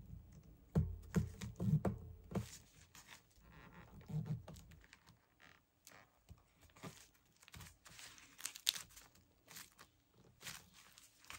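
Paper rustling and crinkling with soft taps as a glued piece of paper is pressed and smoothed onto a handmade journal page by hand, with a few soft thumps in the first couple of seconds.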